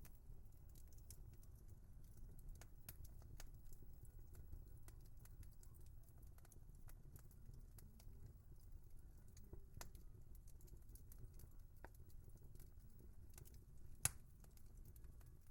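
Wood fire crackling: many small irregular pops and snaps over a faint low rumble, with one sharper, louder pop near the end.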